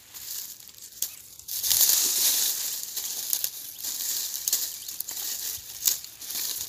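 Dry sorghum stalks and leaves rustling and crackling as the grain heads are cut from the stalks with a small hand blade, with a few sharp snaps. The rustling grows louder about a second and a half in.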